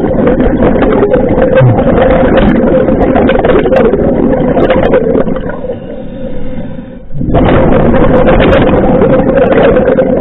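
Scuba regulator breathing: loud bubbling and gurgling of exhaled air venting from the regulator, heard through the underwater camera housing. It comes as two long exhalations, with a short quiet break for a breath about seven seconds in.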